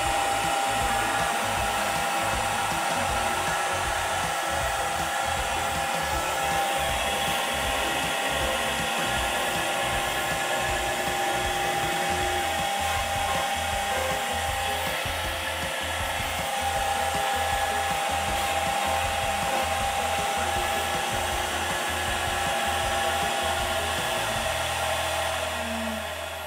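CNC router spindle running steadily at 18,000 RPM while it drills holes in MDF, a speed its owner thinks is about twice too high, enough to burn the holes and clog the cutter with MDF. Near the end the spindle winds down and the sound fades.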